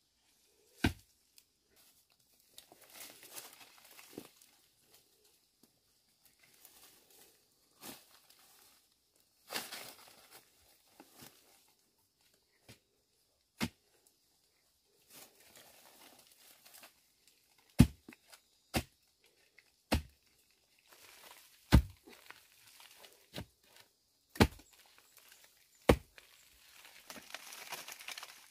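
Sharp knocks of a hand tool striking, sparse at first and then repeating every one to two seconds through the second half, with rustling and crinkling between the strikes.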